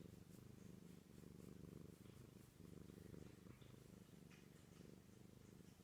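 Domestic cat purring softly and steadily, close to the microphone.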